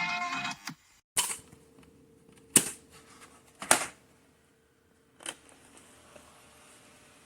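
Music playing from a portable cassette player cuts off less than a second in. Then come four sharp mechanical clicks, spaced a second or so apart, as the player's keys are worked, with a faint steady hum underneath.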